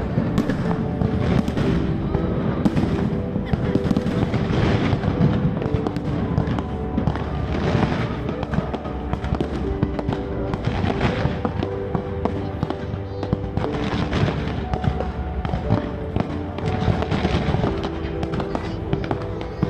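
Fireworks display, with many bursts and crackles going off in close succession throughout, over music with sustained notes.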